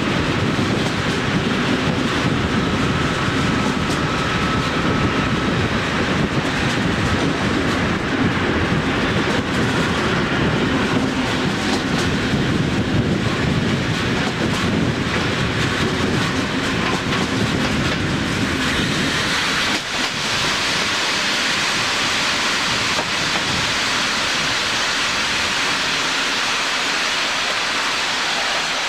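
Train running on a branch line, heard from an open carriage window: steady rumble of wheels on the rails with clickety-clack. About two-thirds of the way in the low rumble drops away and a higher hiss carries on, as the train nears a small station.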